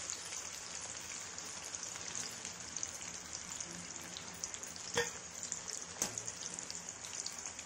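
Kachoris and green chillies sizzling steadily as they deep-fry in hot oil in a kadhai. Two sharp metal clicks about five and six seconds in come from the wire skimmer striking the pan as the kachoris are lifted out.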